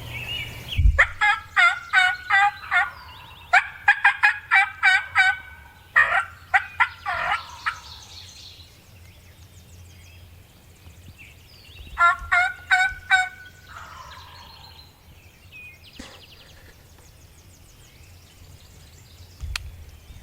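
Turkey yelps in four loud runs of evenly spaced notes, about three or four a second, with quieter stretches between the runs.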